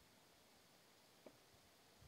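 Near silence, with one faint tick about a second in.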